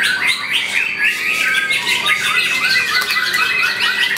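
White-rumped shama (murai batu) in full song: a fast, unbroken stream of short, varied whistled and chattering notes.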